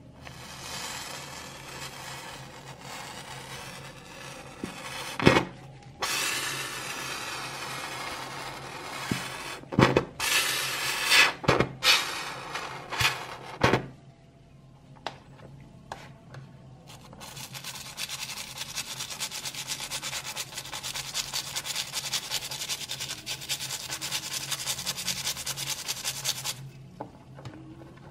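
Water pouring into a tub of soapy water over diecast model car parts, with several sharp knocks as the metal parts shift. Then, from a little past halfway, a small brush scrubs the parts in the suds with quick, even strokes that stop shortly before the end.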